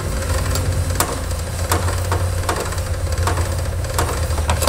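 Ratchet wrench clicking in short irregular strokes, about two to three clicks a second, as it backs out a 10 mm bolt in a lawn tractor's steering knuckle. A steady low hum runs underneath.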